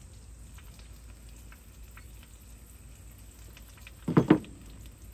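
Oil running out of an International 766 tractor's transmission housing into a container below, a steady trickling hiss. A brief loud noise about four seconds in.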